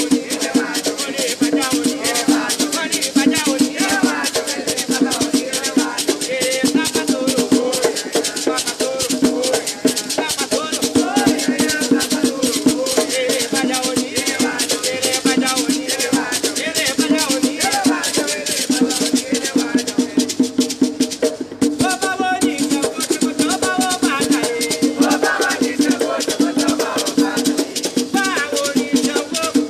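Afro-Brazilian Batuque ritual music: hand drums and a beaded gourd rattle (agê) keep up a fast, unbroken rhythm, with a voice singing a chant to the orixás over it.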